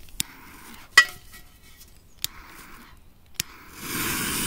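A lighter struck four times to light the fuse of an Achtung firecracker: sharp clicks about a second apart, the second with a brief metallic ring. A short hiss starts near the end.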